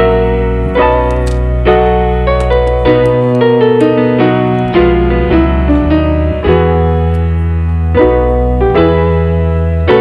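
Background piano music: a melody of struck notes over held bass notes.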